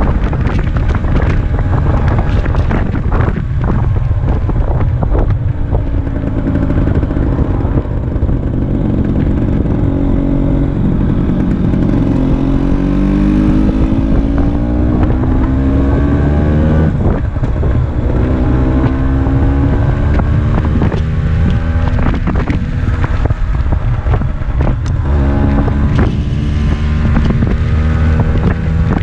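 Vespa PX80 scooter's two-stroke single-cylinder engine, fitted with a DR 136 cc Krüger cylinder kit, running on the move with wind buffeting the microphone. The engine note climbs in pitch about halfway through, drops back sharply a few seconds later, then runs steady again.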